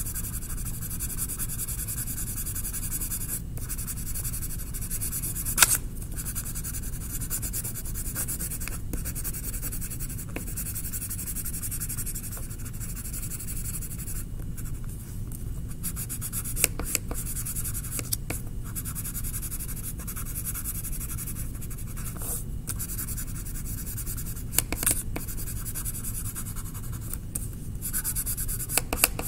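Green coloured pencil scratching steadily across paper in quick back-and-forth shading strokes, colouring in grass. A few sharp ticks break in, the loudest about six seconds in.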